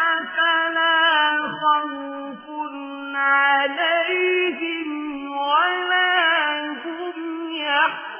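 A single voice chanting Quran recitation in a melodic style, with long held notes and ornamented turns in pitch.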